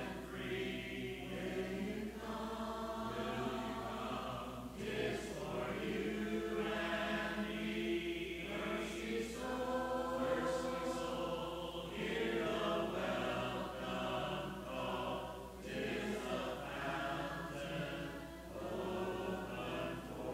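Congregation singing a hymn a cappella, many voices together without instruments, in phrases a few seconds long.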